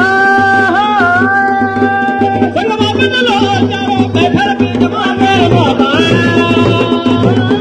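A man's voice sings a devotional chant through a microphone in long held, wavering notes over a steady drum beat.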